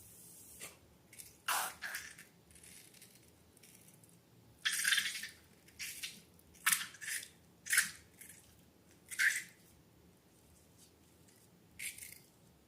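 Slime being handled: about nine short, wet, sticky squelches at irregular intervals, the longest about five seconds in.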